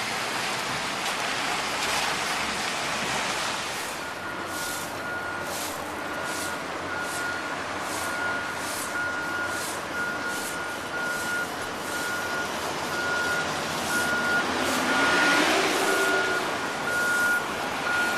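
Road traffic with a vehicle's reversing alarm beeping at a steady pitch, a little over once a second, starting about four seconds in. A vehicle passes louder near the end.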